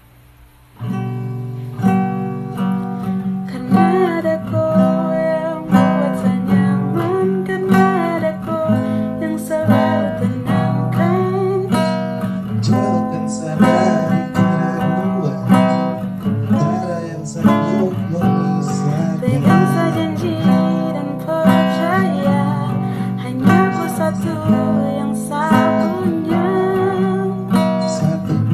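Strummed acoustic guitar with a voice singing over it, starting about a second in.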